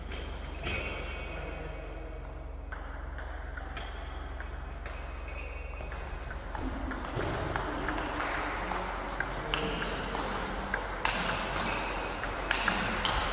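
Celluloid-type table tennis ball clicking off bats and table in a rally, with sharp irregular ticks in the second half after a quieter lull between points. A steady low hum runs underneath.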